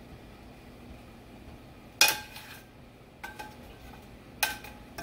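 Kitchen utensils clinking against dishes: a sharp clink with a short ring about two seconds in, then two more over the next two and a half seconds.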